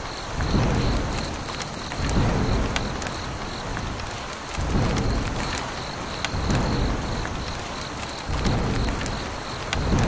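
Rain and thunder sound effect: steady rain hiss with low rolls of thunder swelling up about every two seconds.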